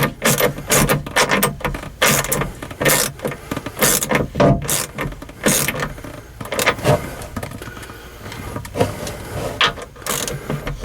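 Hand socket ratchet running nuts onto a bow-eye U-bolt: the pawl clicks and rasps in repeated bursts, one or two strokes a second, with a steady low hum underneath.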